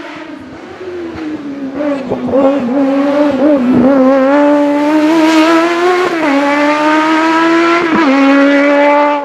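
Motorcycle-engined Proto P2 race car revving hard as it climbs toward the listener, getting louder. Its high engine note wavers on and off the throttle at first, then climbs through the gears with two quick upshifts in the second half.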